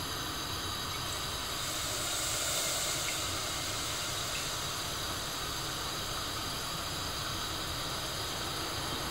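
Steady hiss of a lit gas stove burner under a stainless steel pot, slightly louder and brighter about two seconds in.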